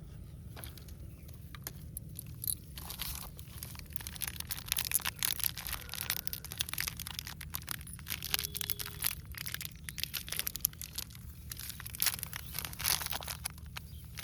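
Dense crinkling and crunching, many quick crackles in a row, as of crinkly material being handled and crushed; it gets busier about three seconds in.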